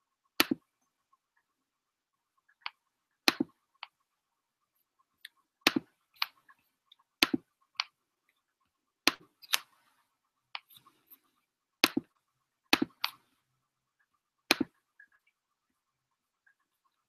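Sharp clicks at a computer, at irregular gaps of a second or two, several coming in quick pairs.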